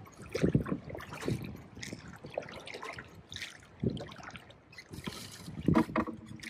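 Lake water splashing and sloshing against a small rowboat, with a few irregular splashes as a hooked largemouth bass thrashes at the surface beside the boat.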